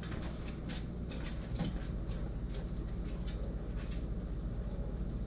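Steady low hum of a kitchen, with a few light knocks and clicks in the first two seconds as someone goes out through the back door.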